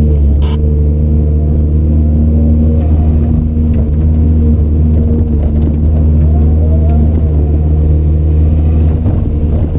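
Heavy diesel earthmoving machinery engine running steadily under load, a deep even drone. There is a brief click about half a second in, and a faint whine rises and falls near the middle.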